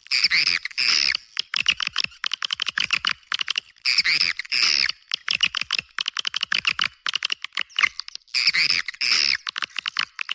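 Edible-nest swiftlet lure call: rapid trains of dry clicks broken by bursts of twittering chirps about every four seconds, with nothing in the low range.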